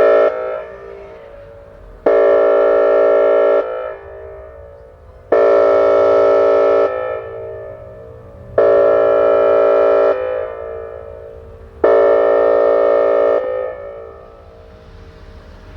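Whelen WPS 2810 electronic outdoor warning siren sounding a steady-pitched, horn-like tone in four blasts of about a second and a half each, roughly three seconds apart. Each blast starts and cuts off sharply and leaves an echo trailing behind it.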